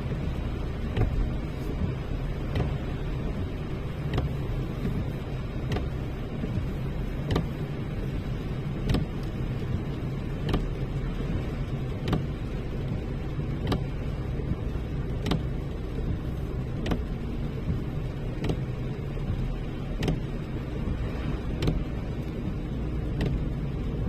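A car driving, heard from inside the cabin: a steady low rumble of road and engine, with a short click repeating about every second and a half.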